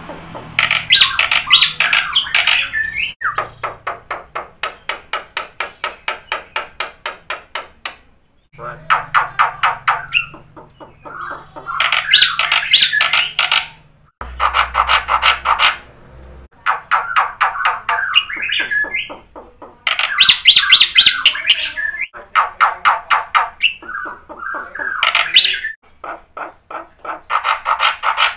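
Black-winged myna (jalak putih) in full song: loud, harsh chattering and whistled phrases alternating with long runs of rapid, evenly repeated clicking notes, broken by a few short pauses.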